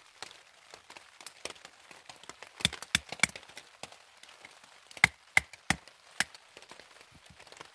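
A wooden baton knocking the back of a knife to split small sticks of firewood for a tiny wood-burning camp stove: three sharp knocks in quick succession a little under three seconds in, then four more about two seconds later. Rain patters lightly on a plastic tarp underneath.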